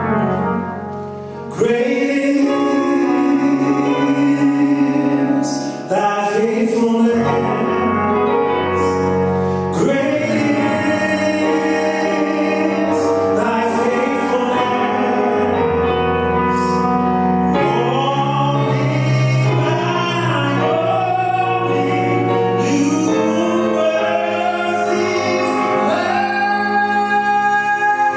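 Gospel choir singing with a live band: voices slide up into long held notes with vibrato over a steady bass line.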